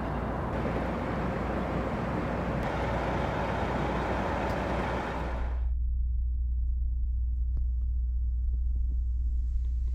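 Steady outdoor rushing noise, which cuts off about five and a half seconds in to a low steady hum with a few faint clicks.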